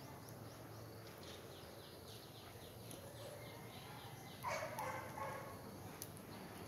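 Animal calls: a run of quick, high, falling chirps about four times a second, then a louder short bark-like call about four and a half seconds in.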